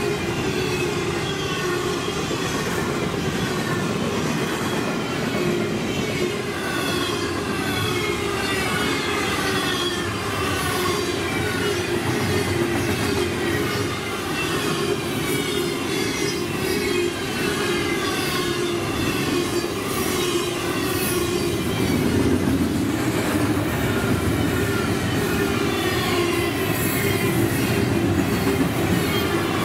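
Freight train cars rolling past at track speed: a steady noise of steel wheels on rail, with repeated squealing tones that fall in pitch as car after car goes by, and faint regular clicks.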